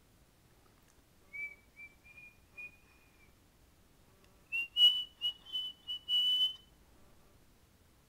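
Cockatiel whistling: a run of short notes starting about a second in, then a higher, louder phrase of several notes past the middle.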